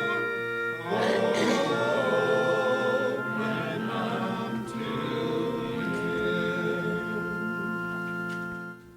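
Congregation singing a hymn with instrumental accompaniment, with held notes, ending on a sustained final chord that stops near the end.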